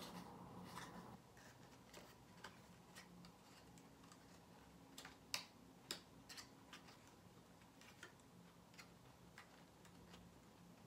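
Faint, scattered clicks and taps of small objects being handled, with two sharper clicks a little past halfway, over quiet room tone.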